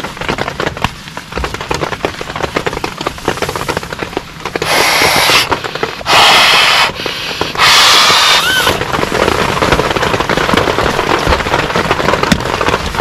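Heavy rain pattering densely on a tent, a fast crackle of drops, with three louder hissing rushes in the middle.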